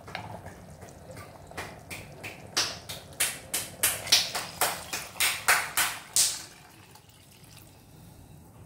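A spoon scraping and knocking ground paste out of a container into a pot of simmering curry, with liquid splashes: a quick, irregular run of short scrapes and splashes that dies down about two-thirds of the way through.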